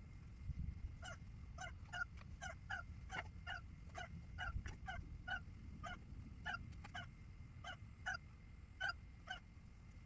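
A run of short honking calls, two or three a second at an uneven pace, starting about a second in and stopping shortly before the end.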